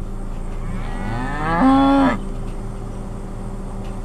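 A cow mooing once: a single drawn-out call of about a second and a half that rises in pitch, holds steady at its loudest, and cuts off sharply about two seconds in.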